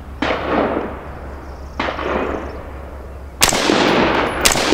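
Semi-automatic AR-15-style rifle fired prone: two single shots about a second and a half apart, each with a ringing echo, as test shots to check the optic's zero after a windage adjustment. From about three and a half seconds in, the shooting turns louder and denser as the audio is fast-forwarded.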